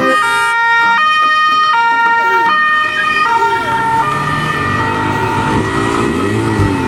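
Toy police car's electronic two-tone siren, stepping back and forth between a lower and a higher pitch about every three-quarters of a second. It weakens after about four seconds, under a fainter repeating swooping sound.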